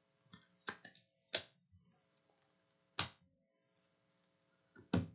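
Trading cards being handled: a handful of sharp, separate clicks, four of them louder and spread a second or two apart, over a faint steady hum.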